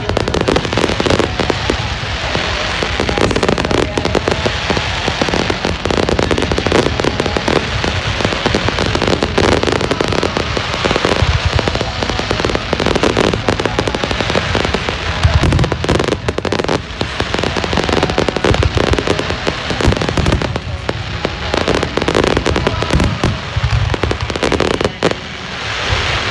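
Aerial fireworks shells bursting in rapid, continuous succession, a dense barrage of booms and crackling, with heavier booms about two-thirds of the way in and again near the end.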